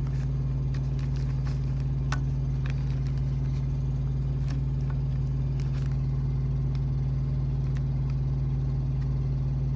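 Steady low drone of an idling diesel truck engine, even throughout, with a few light clicks and taps of small parts being handled.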